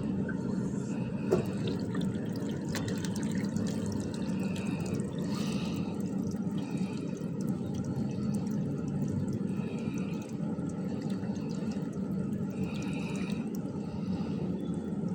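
Water running steadily from a solar water heater's plumbing, with a sharp click about a second and a half in.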